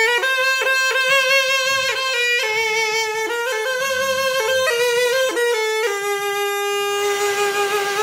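Solo folk melody: one melodic line of long, held notes with quick ornaments and sudden shifts in pitch, unbroken throughout.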